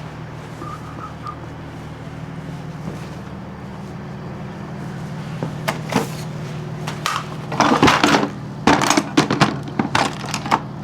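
Rummaging through loose items while searching for a tool: scattered clattering and rustling that gets busier in the second half, over a steady low hum.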